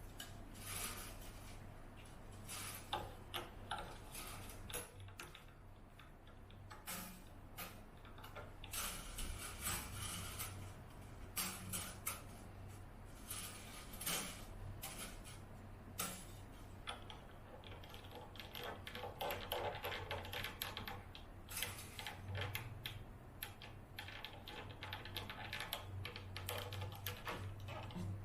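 Irregular clicks, taps and rustling of small hard objects being handled, over a steady low electrical hum.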